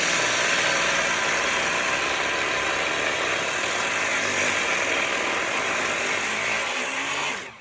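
Power cutting tool running steadily with a dense whine and hiss, then switched off and cutting out abruptly near the end.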